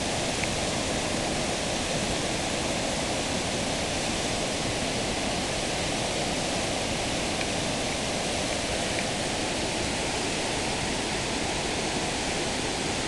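Waterfall and white-water rapids rushing steadily over rock, a constant, even wash of water noise.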